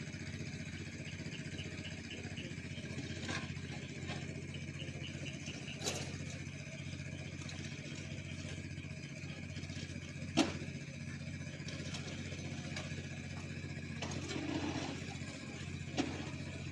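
An engine running steadily at idle, with a few short, sharp knocks or clanks: four of them, the loudest about ten seconds in.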